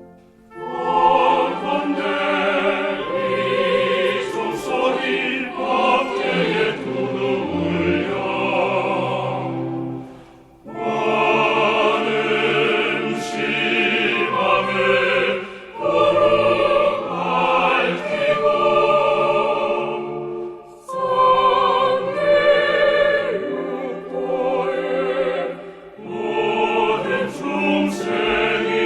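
A choir singing a Won Buddhist hymn (성가) with accompaniment. The verse comes in phrases separated by short breaks.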